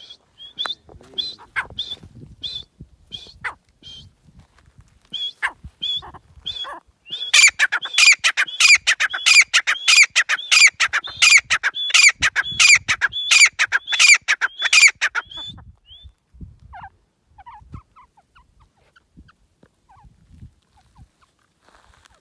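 Francolin (teetar) calling: a series of high, shrill notes that breaks, about seven seconds in, into a loud rapid run of calls at two or three a second. The run stops abruptly about eight seconds later, and only faint scattered sounds follow.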